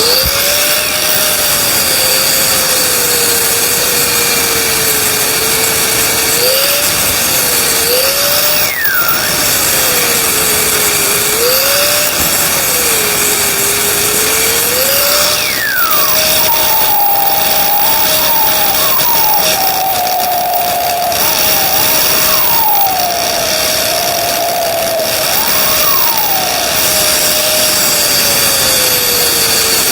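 Angle grinder with a cut-off disc cutting metal, switching on suddenly and running steadily, its motor pitch sagging and recovering as the disc bites, with a few brief falling squeals.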